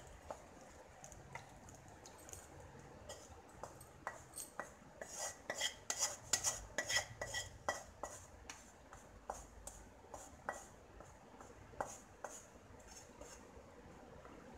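Wooden spatula scraping and knocking against a metal kadhai as cooked onion-tomato masala is scraped out into a steel bowl: irregular scrapes and taps, busiest a few seconds in.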